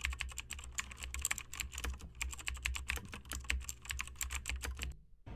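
Computer keyboard typing: a fast, uneven run of key clicks, several a second, that stops about five seconds in.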